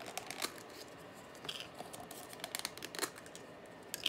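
Small plastic paint cups and their clear snap-on lids being handled on a table: scattered light clicks and taps, with a few sharper ones about a second and a half in and near the end.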